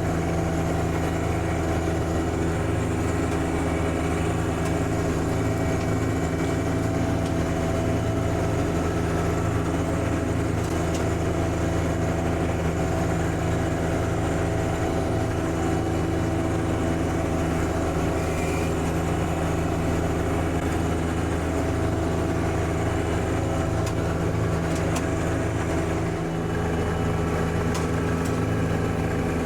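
John Deere 1025R compact tractor's three-cylinder diesel engine running at a steady speed, with a brief dip in level near the end.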